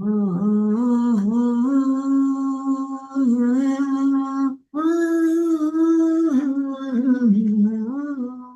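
A person humming a chant tune with the mouth closed, breathing out through the nose as a pranayama exercise. The notes are long and held, with small slides in pitch and a short break for breath about halfway through.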